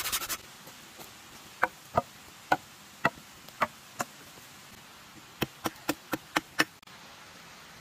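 A small axe chopping the end of a wooden stick held upright against a log: two runs of sharp chops, the second run quicker at about four a second. It opens with the last quick strokes of a folding pruning saw cutting a branch.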